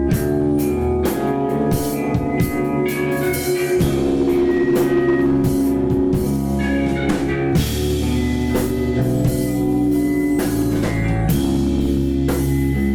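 A rock band playing live: electric guitars holding notes over bass and a drum kit with frequent cymbal and drum hits, no vocals.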